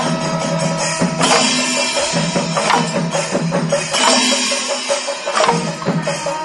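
Kerala temple percussion ensemble playing barrel drums and small hand drums in a dense, fast rhythm. Heavier accented strokes land about every second and a half, over a steady held tone.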